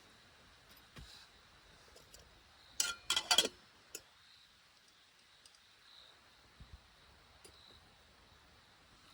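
A quick cluster of sharp clicks and clinks, with a brief ringing tone, about three seconds in, as of hard objects knocked together while being handled. A few faint taps follow over a low, steady background hiss.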